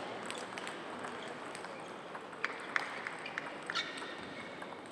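Table tennis balls clicking on tables and rackets: scattered sharp, lightly ringing ticks, the clearest bunched about halfway through, over a steady background hiss in a hall of several tables.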